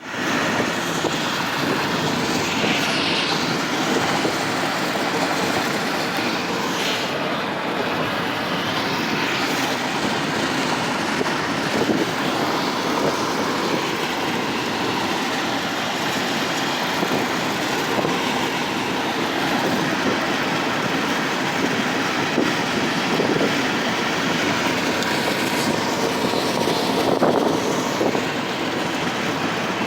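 Steady road and tyre noise of a vehicle travelling at freeway speed, with a few brief swells.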